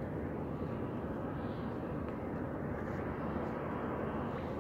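Steady rumble of wind buffeting the camera microphone beside open water, with no clear distinct events.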